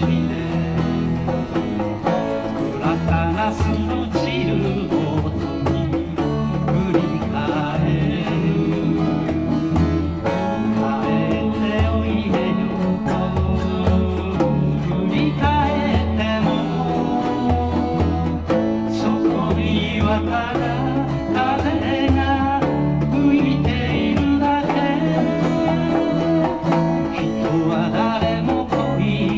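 Live folk song: a steel-string acoustic guitar strummed with keyboard accompaniment and a man singing into a microphone, playing on without a break.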